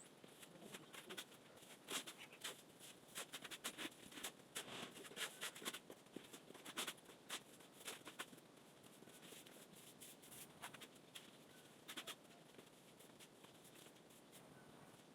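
A series of irregular light clicks and taps, frequent through the first two thirds and sparser near the end, over a faint background.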